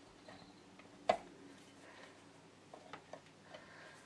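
SDS bit and chuck of a DeWalt cordless SDS drill clicking as the bit's shank is pushed and twisted into the chuck with the sleeve pulled back: one sharp click about a second in, then a few faint ticks.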